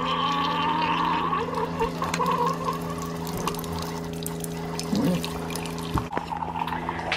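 Keurig single-cup coffee maker brewing: its pump hums steadily while a thin stream of coffee pours into a mug. One click comes about six seconds in.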